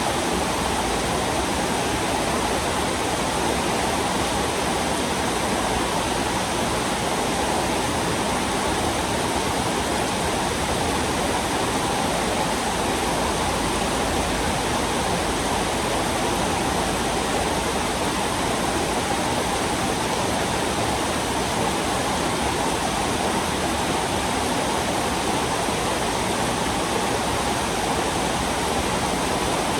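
Heavy rain falling in a steady, unbroken downpour hiss.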